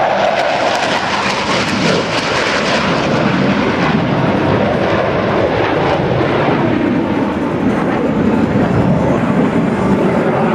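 Jet engines of Blue Angels F/A-18 Hornets flying overhead, a loud steady rush whose pitch drops lower from about halfway through as the jets pass.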